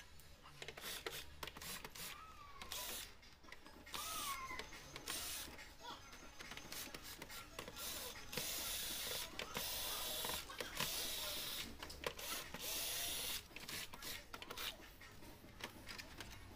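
Cordless drill/driver backing out the screws of a TV's plastic back cover: the motor whirs in several short runs and then in a longer stretch from about halfway through, with clicks and knocks of the driver bit and the cover being handled.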